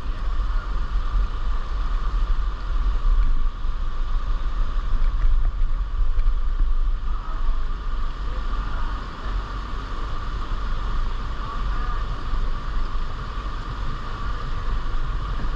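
Steady rushing of creek water, with wind rumbling low on the microphone.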